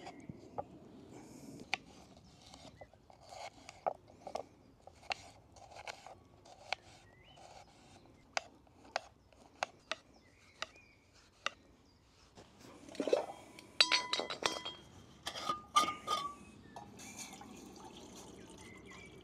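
Camp cooking handling: scattered light clicks and taps, then a louder cluster of metal cookware knocking and clinking with a brief ringing tone about 13 to 16 seconds in.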